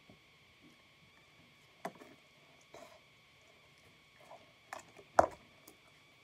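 Scattered small sounds of someone eating instant cup noodles with a plastic fork: chewing and mouth noises and the fork against the paper cup, with one sharper, louder click about five seconds in.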